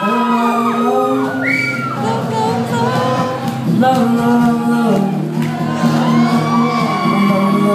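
Live band music with long held sung notes, recorded from within the audience in a large hall, with crowd voices and whoops mixed in.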